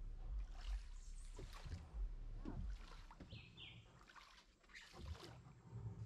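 Oars of a hand-rowed wooden river boat dipping and pulling through the water, with irregular splashes and knocks of the strokes over a low rumble. A couple of short high chirps come about midway.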